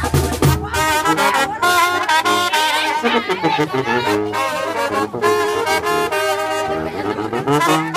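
Live brass band playing a dance tune: trumpets carry the melody over a sousaphone bass, with drum beats near the start.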